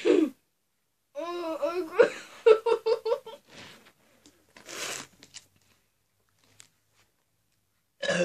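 A girl giggling breathlessly after gulping fizzy lemonade: a sharp gasp, then a run of quick giggles, then breathy exhales and another gasp near the end.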